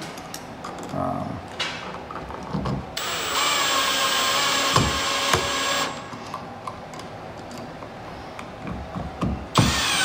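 Cordless drill/driver driving the mounting screws of a light switch into its electrical box. The motor runs steadily for about three seconds, then starts again just before the end, with light clicks and knocks from handling between the runs.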